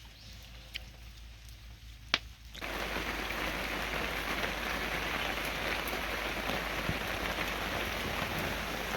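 Faint scattered ticks and one sharp click, then a steady, even hiss of rainfall that starts abruptly about two and a half seconds in and keeps going.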